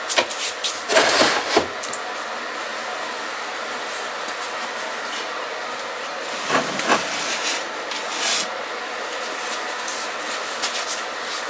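A steady machine-like rushing noise, with wooden knocks and clatter near the start and again about two-thirds of the way through, as pieces of wood are handled.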